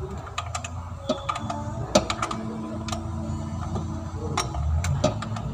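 Irregular sharp metallic clicks and taps of a hand wrench working on a car engine's valve cover, over a steady low hum.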